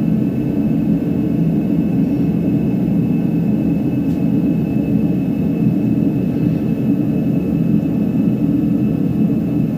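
2007 Chevy HHR's 2.2-litre four-cylinder engine running steadily with a loud rumble and knocking; rod knock from a blown engine shedding silver metal into its oil.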